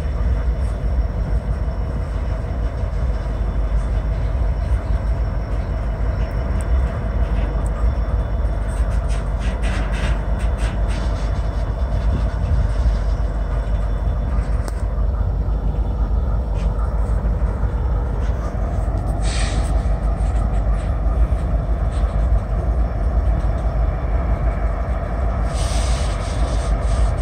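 Norfolk Southern freight train: a steady low rumble with a steady hum, and scattered clicks and clanks about ten seconds in and again near the end.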